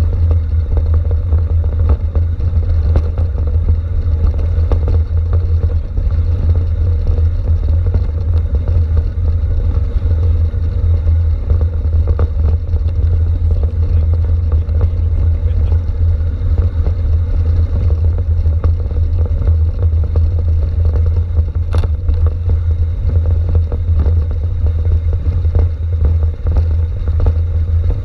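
Wind rumble on the handlebar-mounted camera's microphone as a bike descends a rough gravel and stone track, mixed with constant rattling and knocking from the bike and mount shaking over the stones.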